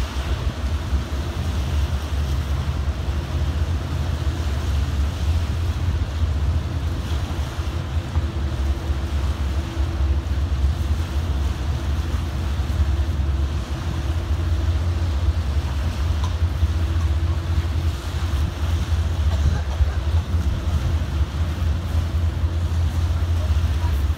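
Wind buffeting the microphone as a steady low rumble, over the wash of harbour water. A faint steady engine hum from the tug comes through for a few seconds around the middle.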